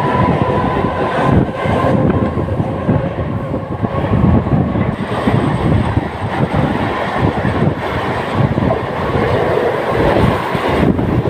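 Mumbai suburban EMU local train running at speed, heard from inside a non-AC coach: a loud, continuous rumble and rattle of wheels on the rails.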